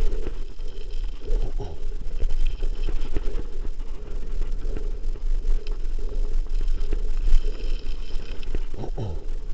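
Mountain bike rolling along a gravel road, with wind buffeting the mounted camera's microphone as a steady low rumble, and the bike and tyres rattling and clicking over the rough surface.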